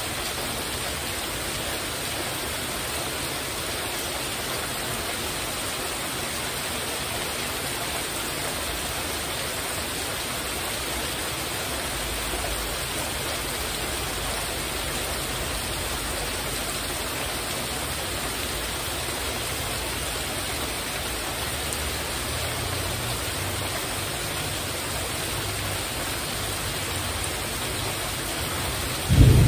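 Heavy rain falling steadily on a metal porch roof, an even hiss. A low rumble of thunder comes in about twelve seconds in, and a sudden loud clap of thunder breaks right at the end.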